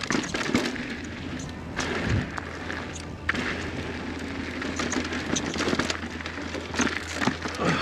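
Mountain bike riding down a dirt trail: tyres on dirt with frequent knocks and rattles from the bike, under a steady low wind rumble on the helmet-mounted camera.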